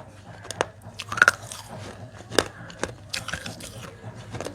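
Close-miked biting and chewing of dry clay pot fragments: a run of sharp, gritty crunches, the loudest about a second in.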